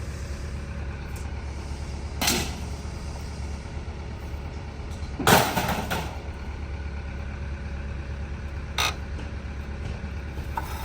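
A vehicle engine idling with a steady low drone, broken by three sharp bangs about three seconds apart. The middle bang is the loudest and rings on briefly.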